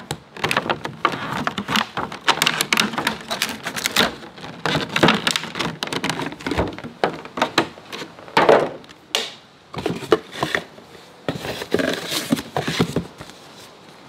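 Plastic packaging bag crinkling and rustling in irregular crackles as a clear plastic foam cannon bottle is unwrapped and handled.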